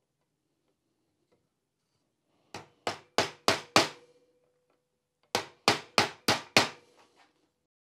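Ball-peen hammer tapping a metal pin into the shaft of a Porsche G50 pedal cluster: two runs of five sharp blows, about three a second, each run getting louder, with a faint ring from the metal.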